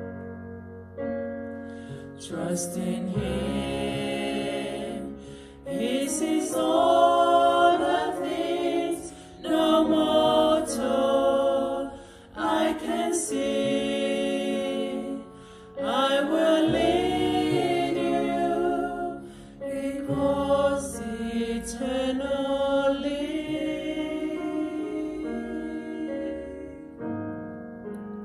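A small group of women's and girls' voices singing a slow worship song together. Loud sung phrases come in waves through the middle, and softer held notes sit at the start and near the end.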